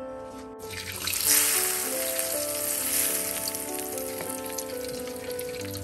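Chilli sambal tipped into hot oil in a frying pan and sizzling. The sizzle starts suddenly about half a second in, is strongest a moment later, then settles into a steadier frying hiss. Background keyboard music plays throughout.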